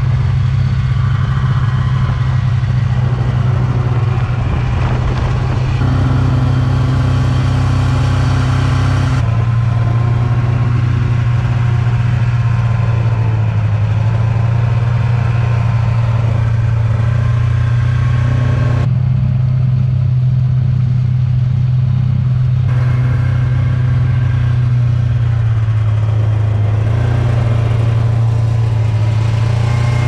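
Snowmobile engine running steadily under way along a snow trail, with a strong low drone. Its note steps up and down abruptly a few times.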